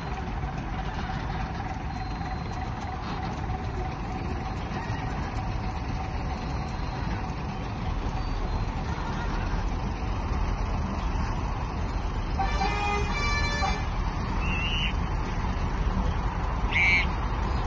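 Low, steady rumble of a heavy road train of trucks being towed slowly past by a Fowler A4 traction engine, growing a little louder as it nears. About two-thirds of the way through, a horn sounds once for about a second.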